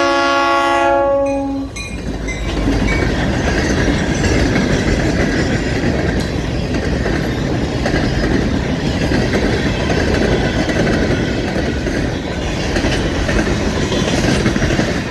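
Florida East Coast Railway local freight train passing close by. The locomotive horn sounds a chord that cuts off under two seconds in, then the rock cars roll past with a steady rumble and clickety-clack of wheels on the rail joints.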